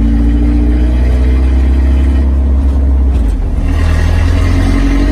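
Straight-piped exhaust of the Corvair-bodied Chevy S10 running loud and steady while driving, with a deep drone and a pitch that shifts a little about three and a half seconds in.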